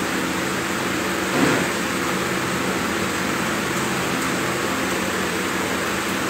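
Steady room background during a pause in speech: a low, even hum with hiss, like a fan or air conditioner running. A brief faint sound comes about a second and a half in.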